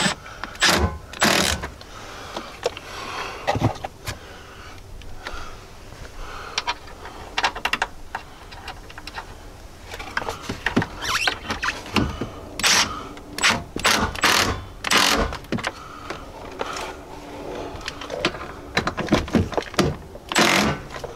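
Hand ratchet clicking and knocking against steel as the door-hinge bracket bolts are run down tight. The sharp clicks and knocks come in irregular bunches, thickest about halfway through and again near the end.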